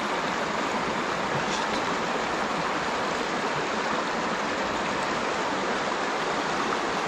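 Shallow mountain stream running steadily over stones and rocks, an even, unbroken rush of water.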